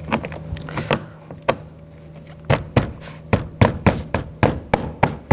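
Hand tapping a plastic door trim piece onto a BMW X5 door to seat its clips: a few separate knocks, then quick even taps about four a second from about halfway through.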